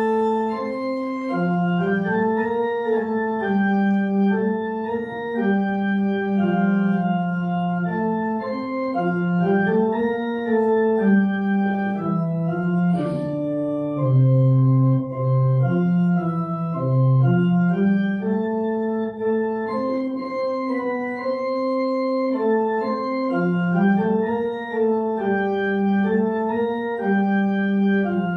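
Church organ playing slow music of held chords, the notes moving every second or so.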